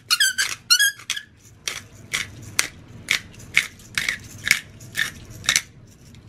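Hand pepper mill being twisted over a bowl, grinding peppercorns in a run of short crunchy strokes about two a second, with a few squeaky chirps at the start.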